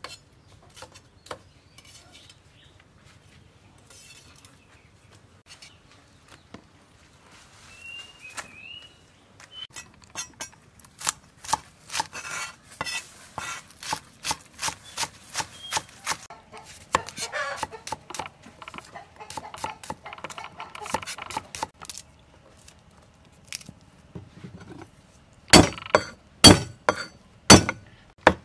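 Cleaver chopping vegetables on a round wooden chopping block: scattered cuts at first, then a long run of fast, even chops through spring onions. Near the end come a few loud single whacks as garlic cloves are crushed with the blade.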